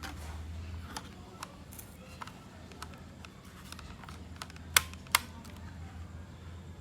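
Small clicks and taps of laptop parts being handled, with two sharp clicks close together about five seconds in, over a steady low hum.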